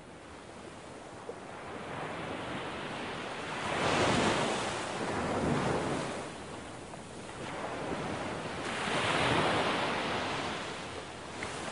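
Surf: wind-driven sea waves breaking and washing up a pebble shore, swelling in surges, loudest about four seconds in and again near ten seconds, with wind rumbling on the microphone.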